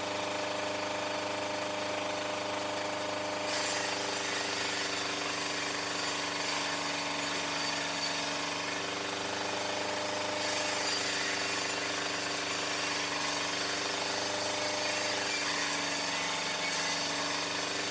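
Sawmill machinery running steadily: a motor's steady hum under a hissing cutting noise. The high hiss drops off about three and a half seconds in and returns about ten and a half seconds in.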